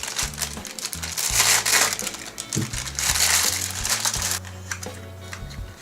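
A shipping package being torn open and its wrapping crinkled by hand, in about three bouts of loud rustling. Background music with steady low notes plays underneath.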